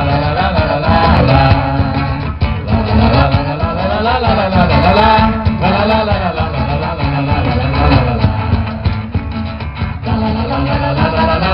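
Mato Grosso folk dance music with singing over a steady beat, played for siriri and rasqueado dancing.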